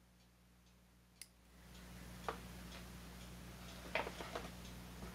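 Faint, regular ticking, about two ticks a second, with a sharp snip about a second in as flush cutters cut through a small plastic part. After that a low hum comes up, and a few light clicks and taps of small tools follow, the loudest cluster near four seconds in.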